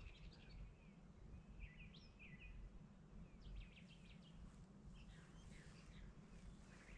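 Faint songbirds calling, with scattered short chirps and whistled notes, over a low steady rumble.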